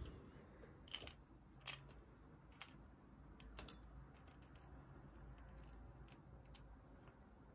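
Several faint, scattered clicks and taps of small airsoft pistol parts and hand tools (picks, screwdriver) being handled on a workbench mat, the sharpest a little under four seconds in.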